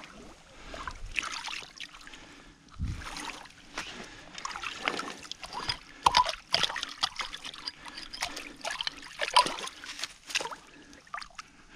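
Shallow pond water being worked at the bank: irregular small trickles, sloshes and splashes, with many scattered crackles and clicks.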